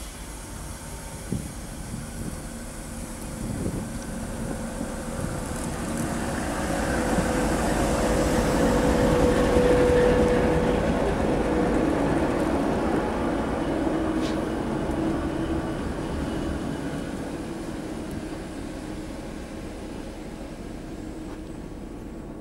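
TEP70 diesel locomotive hauling a passenger train, approaching and passing close by as it arrives at a stop, followed by its coaches rolling past. The sound builds to its loudest about ten seconds in, with a steady whine at the peak, then fades gradually as the coaches go by.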